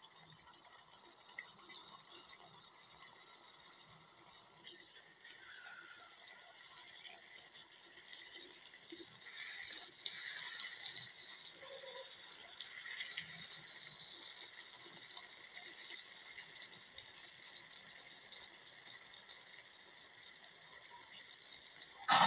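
Thick chicken curry simmering in a steel kadhai, a faint steady bubbling hiss. A sudden loud metal clatter comes right at the end.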